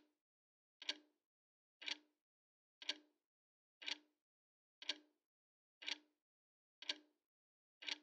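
Steady clock ticking, one short, sharp tick about every second, each tick a quick double click.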